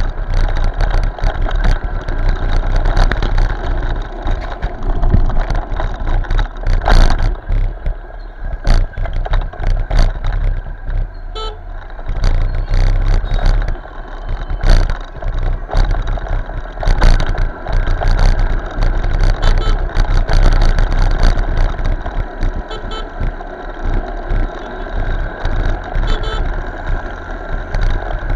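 Riding a motorcycle through road traffic: a steady heavy low rumble with knocks and bumps, and vehicle horns sounding now and then.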